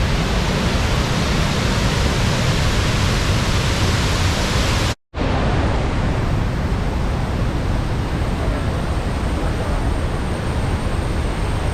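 Waterfall's rushing water: a loud, steady rush of falling water. It cuts out for a split second about five seconds in, then comes back a little duller.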